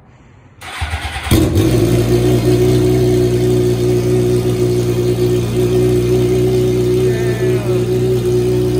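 2006 Suzuki GSX-R750 inline-four cranked on the electric starter, catching after under a second, then idling steadily and loud through an open header with the stock muffler removed.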